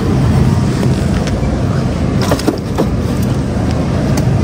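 Steady low rumble with a few light clicks and knocks: a box of frozen waffles being handled at a freezer case and a shopping cart being pushed along.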